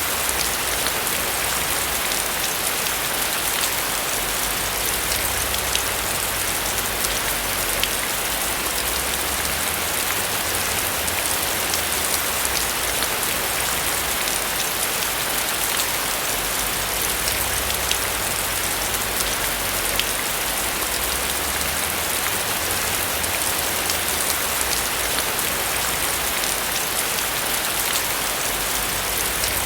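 Steady rain falling on a roof, a continuous even hiss with many small drops tapping.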